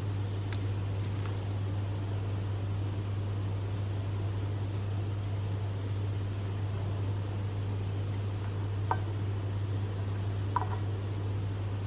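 Steady low hum with a hiss over it, as from a running electric fan. Two faint clicks near the end.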